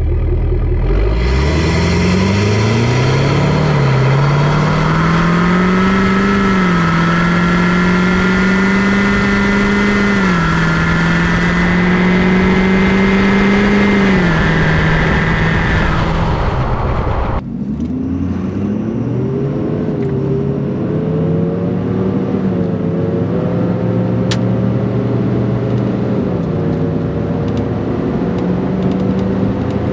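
Ford 6.7 Powerstroke V8 turbodiesel, fitted with an upgraded turbo, pulling hard under full throttle. Its pitch climbs, then drops sharply at each of several upshifts. After a sudden break about 17 seconds in, a second run climbs through the gears and settles into a steadier drone.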